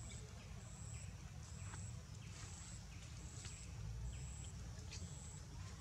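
Outdoor ambience: an insect calling in short, high-pitched buzzes repeating a little more than once a second, over a steady low rumble, with a few faint ticks.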